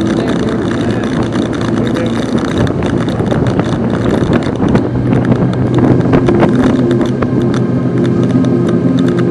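Small boat's outboard motor running under way, mixed with water and wind noise; the engine note shifts and gets a little louder about halfway through.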